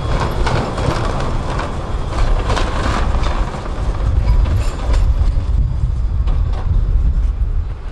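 Articulated electric tram rolling over the crossing tracks of a junction, its wheels clacking over rail joints and points with a low rumble underneath. The clacks thin out after about three seconds as the tram moves off.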